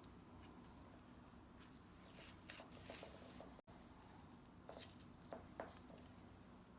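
Faint handling noises from the reassembled plastic laptop: scattered quick clicks and rustles in two short clusters, with a momentary dropout to silence between them.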